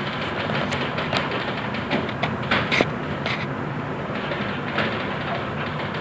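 Steady rumble and hum of a container ship under way in rough monsoon seas, with scattered clicks and rattles, the sharpest a few between about two and a half and three and a half seconds in.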